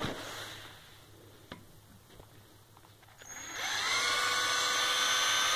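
A faint click, then about three seconds in a power drill fitted with a hole saw starts up, its whine rising in pitch as it winds up and then running at a steady speed.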